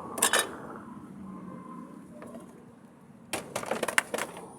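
Clicks and knocks of an electric fan's parts being handled as the fan is taken apart: two sharp knocks near the start, then a quick run of clicks about a second long near the end.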